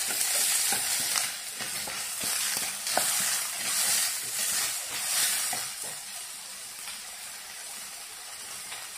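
Chopped vegetables sizzling in oil in a coated frying pan while a wooden spatula stirs and scrapes them, in strokes about once a second. The stirring eases and the sizzle is softer for the last few seconds.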